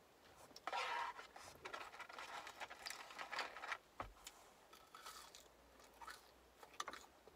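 Close-up chewing of french fries: crackly crunching and wet mouth noises, densest for the first few seconds, then thinning to occasional clicks.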